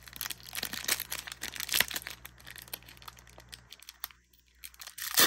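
Plastic booster-pack wrapper crinkling in the hands as it is torn open, in a run of short crackles. There is a quieter stretch about four seconds in and a sharp, loud crackle near the end.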